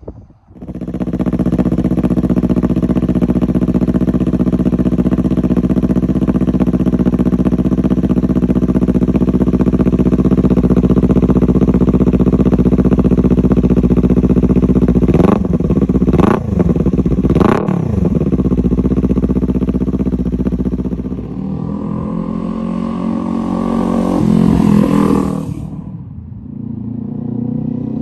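Kawasaki Ninja 400's parallel-twin engine through a Hindle megaphone slip-on silencer, idling steadily, then revved three times in quick succession, each rev rising and falling back to idle. Later the bike passes by under acceleration, its exhaust note climbing, then fading away.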